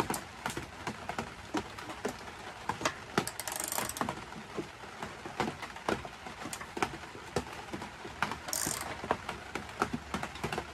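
Socket ratchet wrench clicking in short irregular runs as new spark plugs are snugged down past hand tight, with two brief scraping hisses in between.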